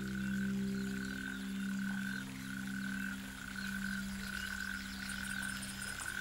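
Chorus of frogs calling in the dark: a steady low hum under a higher trill that pulses on and off about once a second, with faint rapid high chirps now and then.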